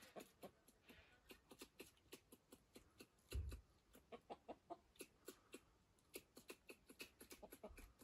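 A faint run of short, sharp clucking calls, several a second, from an animal; a dull low thump comes about three and a half seconds in.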